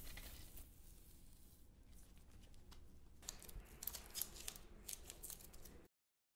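Faint candle flame crackle: a soft hiss, then from about three seconds in a run of small crisp snaps and crackles, which cuts off abruptly near the end.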